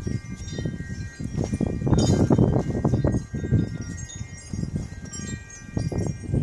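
Wind chimes ringing, several steady overlapping tones, over a louder low rumble that rises and falls.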